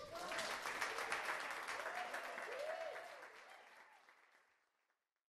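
Audience applauding, with a few cheers, at the close of a live set; the applause dies away near the end.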